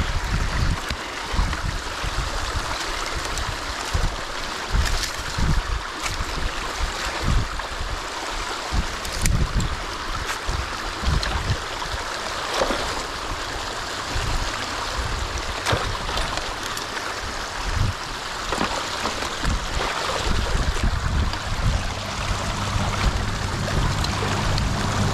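Water rushing and gurgling steadily through a freshly opened breach in a beaver dam as the blockage is cleared. Irregular low rumbling thumps run underneath, with a few sharp clicks scattered through.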